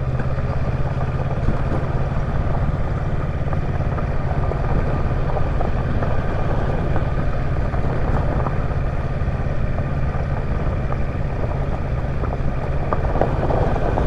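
Kawasaki Versys 650's parallel-twin engine running steadily at low speed, with the tyres crunching and rattling over loose slag gravel as the bike shakes on the rough surface.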